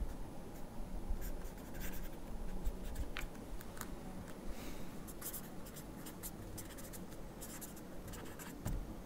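Marker pen writing on paper: quiet, irregular scratching of the tip as words are written out.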